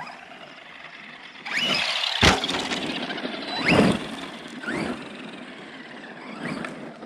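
Arrma Outcast 4S RC truck's brushless electric motor whining up in pitch with bursts of throttle, several rising whines in a row, over the rush of its tyres on dirt. One sharp impact about two seconds in as the truck hits the ground.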